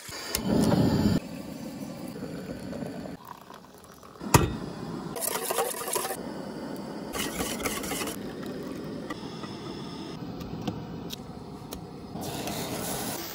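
Water poured from a plastic jug into a stainless steel kettle, loudest in the first second, then a wire whisk beating eggs against the sides of an aluminium pot. A single sharp knock sounds about four seconds in.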